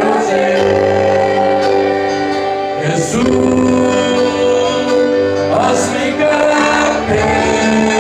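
Gospel worship music: long held chords with several voices singing together, in phrases that change every few seconds.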